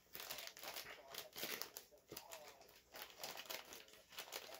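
Plastic shipping bag crinkling in quick, irregular rustles as it is handled and cut open with a blade.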